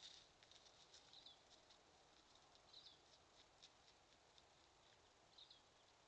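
Near silence, with faint, light crunching steps of a white-tailed buck walking away over dry grass, fading out within the first second or two. A few faint short chirps sound later.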